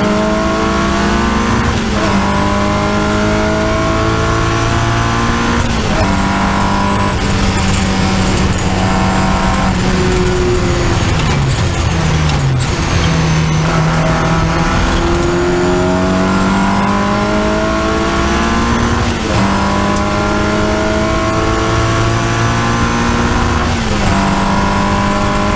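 Triumph Spitfire race car's four-cylinder engine under hard acceleration, heard on board: it revs up and shifts up several times with sharp drops in pitch, then slows with falling revs for a couple of seconds near the middle before pulling up through the gears again.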